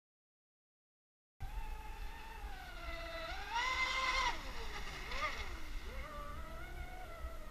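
Electric RC race boat's Neu 2230 brushless motor whining. The sound cuts in after about a second and a half of silence, rises in pitch and is loudest as the boat speeds past a couple of seconds later, then dips and wavers with throttle before settling into a steady lower whine.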